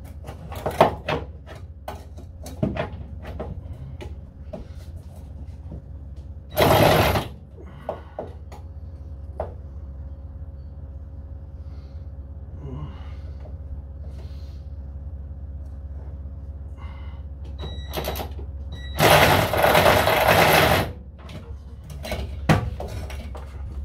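Clicks and knocks of hand tools on the front fender bolts inside a VW Beetle's wheel arch, with two loud noisy bursts, the second about two seconds long, over a steady low hum.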